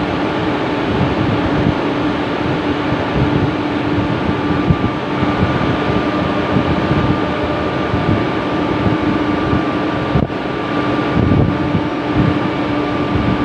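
Ship's deck crane running steadily as its hook and lifting sling are lowered, a low hum with a higher whine coming in about five seconds in, and wind on the microphone.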